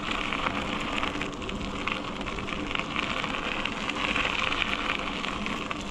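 Steady rushing noise from riding a bicycle: wind over the microphone mixed with tyre hiss on the road, without a break.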